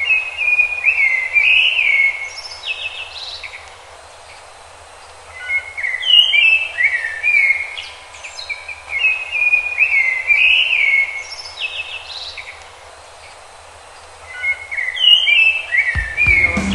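A songbird singing short phrases of quick, clear whistled notes, four phrases with pauses of a few seconds between them, over a faint steady hiss.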